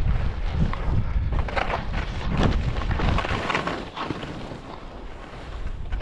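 Wind buffeting the microphone of a moving skier, with skis hissing and scraping over snow in the middle of the stretch. The low wind rumble dies down about two-thirds of the way through.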